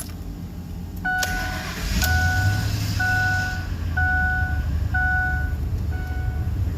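A 2004 Lincoln Navigator's V8 starting, growing louder about two seconds in and settling into a steady idle. A dashboard warning chime dings about once a second over the engine.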